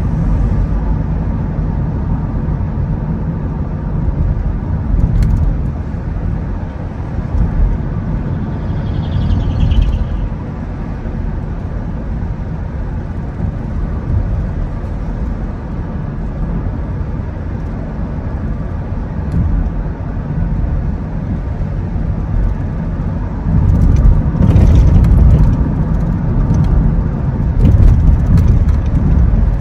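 A car driving on the road: a steady low rumble of engine and road noise, swelling louder for a few seconds near the end.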